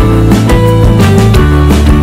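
Loud background music with a steady beat and pitched instrument notes.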